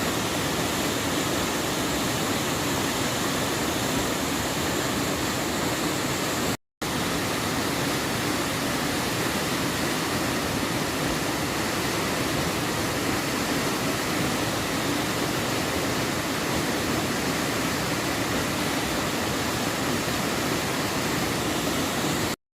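Rushing water of a mountain valley stream: a steady, loud, even hiss. It is cut once by a split-second dropout about six and a half seconds in.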